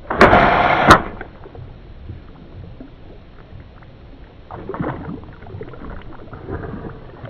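A compound bowfishing bow shot at a longnose gar: a loud release and rush lasting under a second, ending in a sharp crack. The arrowed gar then splashes twice at the surface, about five seconds in and again near the end.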